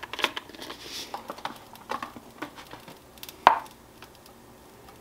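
Seasoning shaken and tapped out of a plastic spice shaker: a quick run of light taps and rattles, then one loud sharp click about three and a half seconds in.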